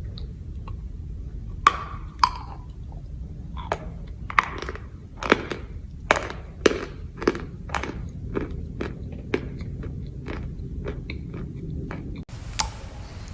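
Chalk crunching: a run of sharp, crisp crunches, irregularly spaced at about one or two a second, over a steady low hum.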